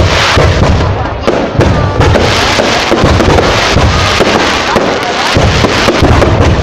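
A fireworks display going off close by, with loud, rapid, overlapping booms and crackling bursts in a continuous barrage.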